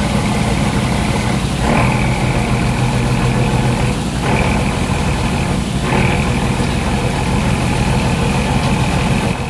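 Fishing boat's engine running steadily with an even low hum. A higher whine rides over it from about two seconds in, dropping out briefly twice.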